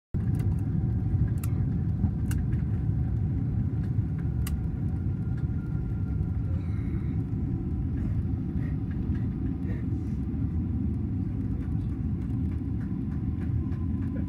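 Steady low rumble of a vehicle under way, with a few faint clicks.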